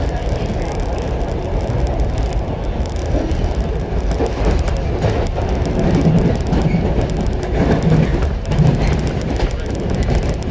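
JR 115 series electric train running, heard from inside the passenger car: a steady rumble of wheels on rail and traction motors.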